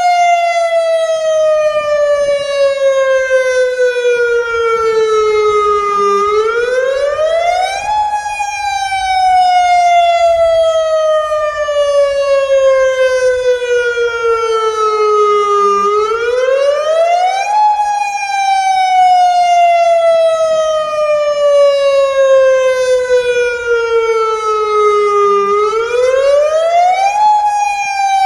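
Federal Signal Modulator 2008 electronic outdoor warning siren sounding its wail tone during a tornado siren test. The pitch slides slowly down for about six seconds, then sweeps quickly back up in about two, about every ten seconds, three times over.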